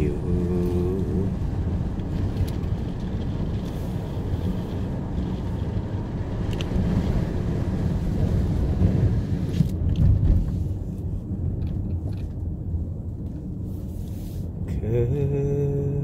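Car driving along a mountain road: a steady low rumble of engine and tyres, with a few short knocks about ten seconds in.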